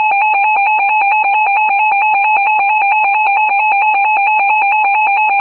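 Emergency Alert System attention signal: a loud, steady two-tone alarm, harsh and distorted, with a fast regular flutter.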